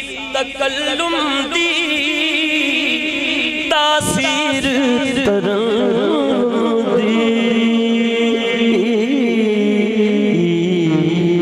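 A man singing a Punjabi naat through a PA microphone: long, drawn-out notes with wide vibrato and melismatic runs.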